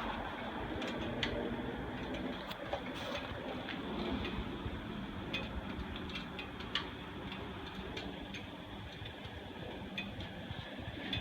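Harley-Davidson Iron 883's air-cooled 883 cc V-twin on its stock exhaust, idling with a steady uneven low beat and occasional sharp mechanical ticks.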